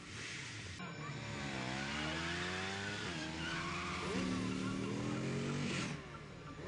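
Motorcycle engine revving: the pitch dips and climbs, is then held at a steady high rev, and drops away about six seconds in.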